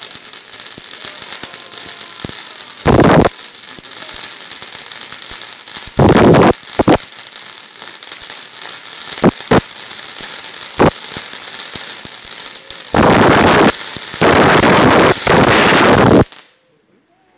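Ground fountain firework hissing and crackling as it sprays sparks, broken by several loud bursts. Near the end comes its longest, loudest blast, about three seconds, which stops suddenly: the fountain malfunctioning into an explosion it was not meant to make.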